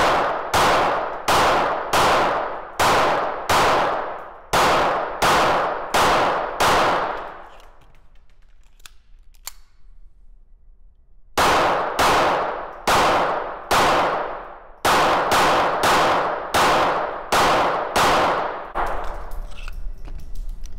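Hämmerli X-Esse IPSC .22 LR semi-automatic pistol fired in two quick strings of about ten shots each, with a pause of a few seconds and a couple of faint clicks between them. Each shot rings out in the reverberant indoor range.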